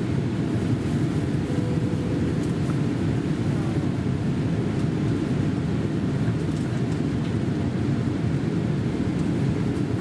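Steady low rumble of cabin noise inside a Boeing 787 airliner in flight, the even rush of airflow and engines heard from a passenger seat.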